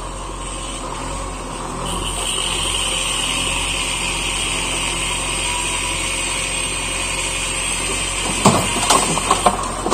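JCB backhoe loader's diesel engine running under load with a high whine as the front loader arm lifts, then broken brick and stone rubble clattering into the steel bed of a tipper truck in a quick series of knocks near the end as the bucket is tipped.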